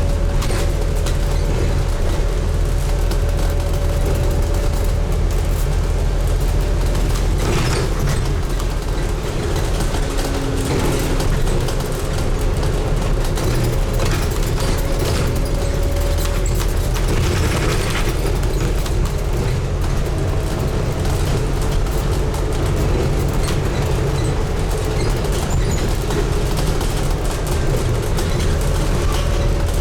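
Scania N250UD double-decker bus under way, heard on board: a steady low engine and drivetrain rumble with faint whining tones that drift slightly in pitch, and a couple of brief rattles.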